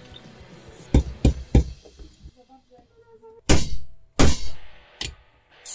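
Hammer blows on steel as a rubber bushing is driven into a Honda Civic EJ2 suspension arm held in a bench vise, with a socket used as a drift: three quick strikes, then three more spaced about a second apart, the middle two the loudest.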